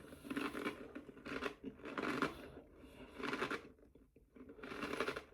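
A person chewing crunchy baked red lentil snack loops (Harvest Snaps), crunching in repeated bursts about once a second.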